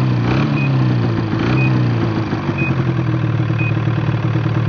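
Ski-Doo snowmobile engine running just after a clutch start. The revs waver for the first second or two, then settle to a steady idle. A short high beep sounds four times, about once a second.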